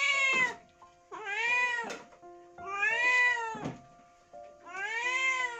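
Domestic cat meowing four times, each call about a second long, rising then falling in pitch, with pauses of about a second between them.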